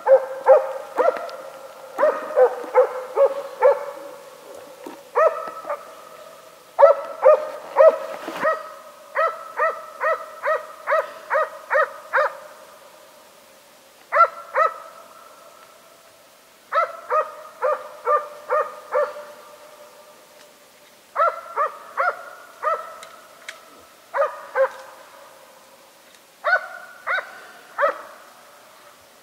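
Moose-hunting dog barking at bay, the steady bark that signals it is holding a bull moose in place. The barks come in runs of quick barks, about three a second, with short pauses between runs.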